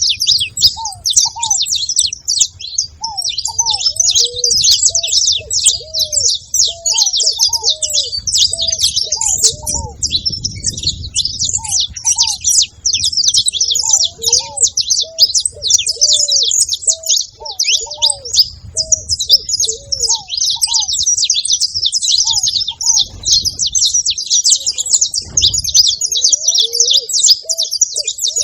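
Saffron finch singing nonstop, a dense run of quick, high chirps and trills. A second, lower-pitched bird call repeats in short paired notes underneath.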